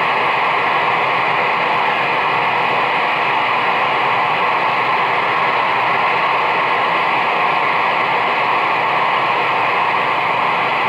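CB radio receiver hissing with steady, loud static on an open channel where nobody is transmitting.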